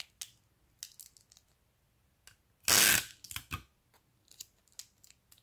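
Plastic-film piping cone filled with paint being rolled and squeezed in the fingers: faint crinkles and ticks, with one louder crinkling rustle about three seconds in.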